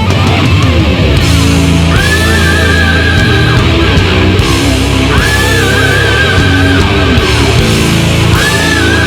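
Loud heavy metal music with distorted electric guitar, a high guitar phrase repeating about every three seconds over a steady low riff.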